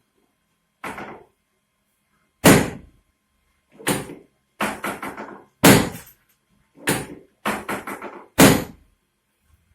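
Chiropractic spinal adjustment: a series of about a dozen sharp knocks and thuds, irregularly spaced, some coming in quick runs of two or three.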